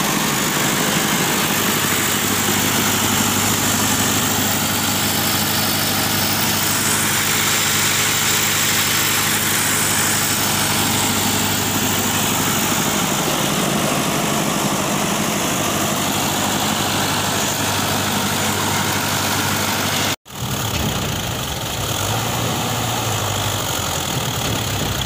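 Fiat 640 tractor's diesel engine running steadily under load while driving a wheat thresher, with the thresher's dense whirring hiss over the engine note. About 20 s in, the sound cuts out abruptly for an instant and resumes.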